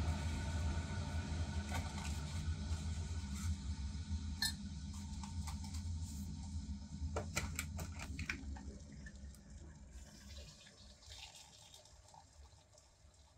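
Water rushing, dying away gradually after about eight seconds, with a few light clicks and knocks around the middle.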